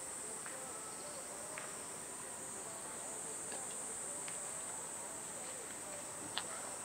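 Steady high-pitched drone of cicadas singing, with a few faint clicks and one sharper click a little over six seconds in.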